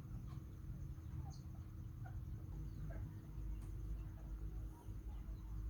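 Faint short animal chirps and squeaks, scattered irregularly, over a low rumble and a steady hum.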